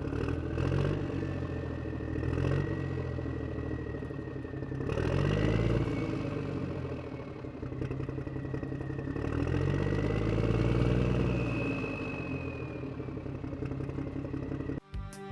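An engine running and revving up and down several times, with a clattering rattle over it. Music begins at the very end.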